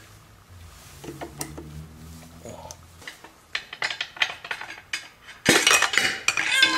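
Metal clinks and knocks as a piston and its connecting rod are worked out of a cylinder bore in a 1.8-litre Integra engine block. A few scattered clicks at first, then a quick run of rattling knocks that grows louder over the last few seconds.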